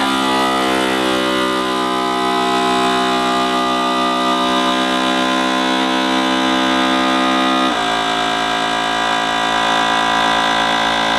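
FoodSaver vacuum sealer's pump running steadily, drawing the air out of a mason jar through a hose and jar-lid attachment. Its tone changes abruptly about eight seconds in.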